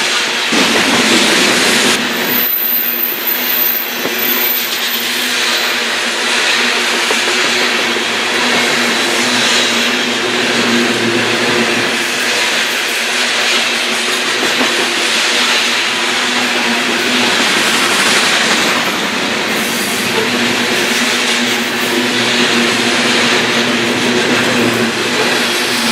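Coal train cars rolling past on the rails: a steady, loud rush of wheel-on-rail noise with no break.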